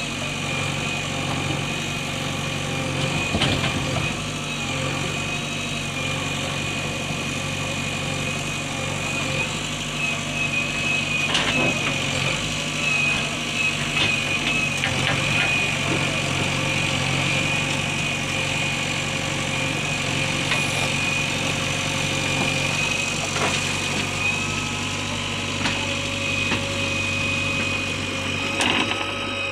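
Heavy diesel machine engine idling steadily, with a steady high whine over the low engine note and a few short knocks.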